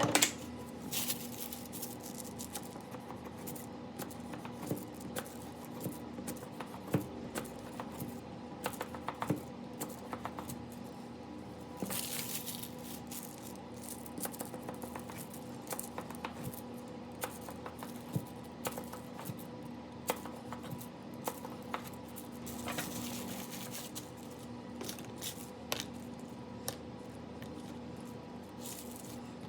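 Scattered light taps, clicks and soft rustles of hands handling kitchen utensils and food, with a brief swish about twelve seconds in and again near twenty-three seconds, over a steady low appliance hum.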